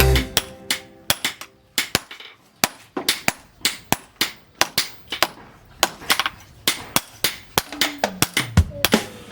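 Hand hammer striking steel on an anvil, a long irregular run of sharp metallic blows, about two to three a second, as a piece of tractor disc steel is forged into a knife blade.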